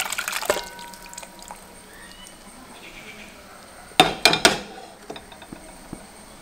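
Thick cooked dal pouring from a pot into a brass uruli of sambar, tailing off about half a second in with a ringing metallic clink. About four seconds in, a cluster of loud clanks of metal cookware.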